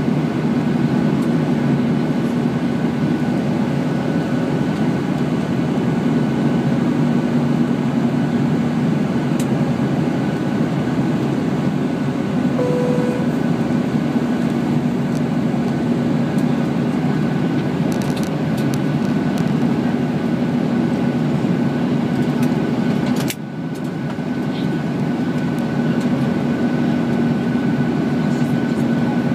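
Steady cabin drone of a Boeing 737-800 in flight: its CFM56 turbofan engines and the airflow over the fuselage, with a constant hum running through it. The noise drops briefly about 23 seconds in, then comes back.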